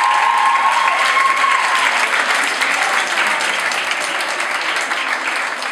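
Audience applauding, the clapping slowly thinning toward the end. A high wavering tone sounds over it for the first two seconds.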